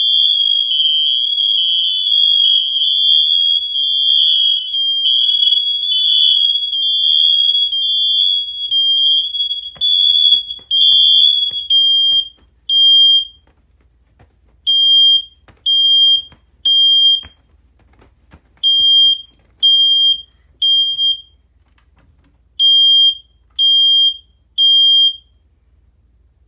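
A collection of smoke alarms sounding together after being set off by aerosol test smoke, their high-pitched beeps overlapping into a near-continuous tone. About twelve seconds in most drop out, leaving one alarm beeping in threes with a pause between groups (the temporal-three evacuation pattern) until it too stops near the end.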